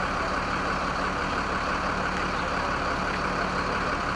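Fire truck's engine running steadily, a constant low hum under a steady hiss, as it powers the raised aerial ladder platform.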